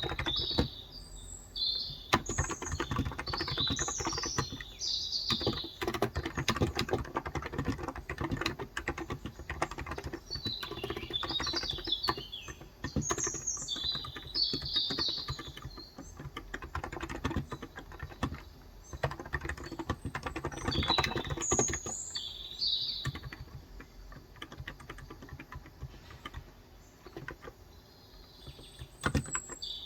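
Typing on a Cox Endeavor electro-capacitive (Topre-style) tenkeyless keyboard with 35 g switches: rapid key clicks in stretches of a few seconds, easing off for a while near the end. Birds chirp in short clusters now and then.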